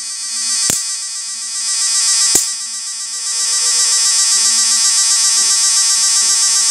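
High-voltage arc from a homemade IGBT electric fishing machine, buzzing loudly and steadily between two wire electrodes. Sharp snaps come about a second in and again about two and a half seconds in, and the buzz grows louder about three seconds in as the arc flares.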